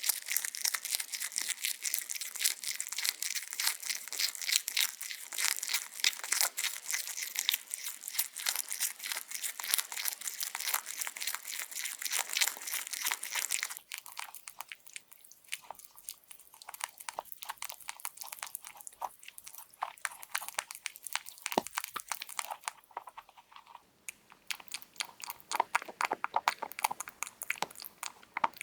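A rabbit chewing vegetables close to the microphone: rapid crisp crunching bites for about the first half. It then turns quieter and sparser, and picks up again into denser crunching near the end.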